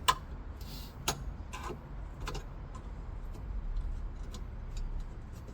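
Sharp clicks and small knocks from the original radio being worked loose from a 1977 Ford Corcel Belina's dashboard. There is one loud click at the start and a few more in the first two and a half seconds, then fainter ticks.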